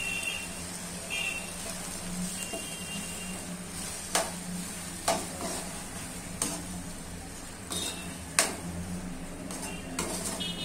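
A metal spatula stirring a prawn curry in a kadai over a steady sizzle, knocking sharply against the pan about five times from about four seconds on.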